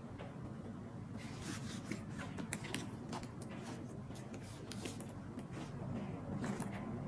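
A leather handbag being handled and turned over on a fabric dust bag: soft rubbing and rustling with scattered light clicks, which become busier from about a second in, over a steady low hum.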